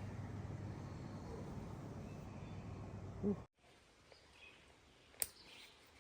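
Steady outdoor noise that stops abruptly at an edit about halfway through. A quiet outdoor stretch follows, with a few faint bird chirps and a single sharp click.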